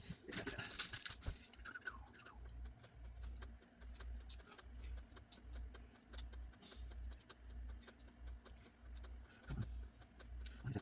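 Faint scattered clicks and light taps from small tools and phone parts being handled, over a low rumble that comes and goes.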